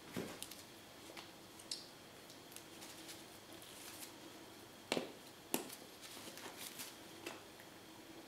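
Paint bottles and tools being handled: scattered small clicks and taps, with two sharper clicks about five seconds in, over a faint steady hum.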